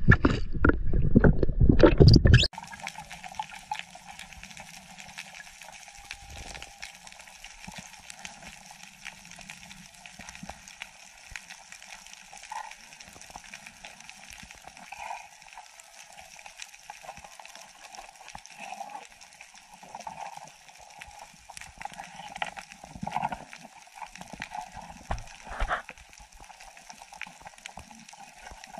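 Underwater water noise picked up by a diving camera: a loud churning rush for the first two seconds or so, then a much quieter, steady, muffled hiss with occasional faint gurgles.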